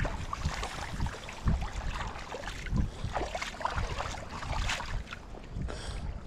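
Wind and water noise, with scattered small splashes and knocks at the water's edge.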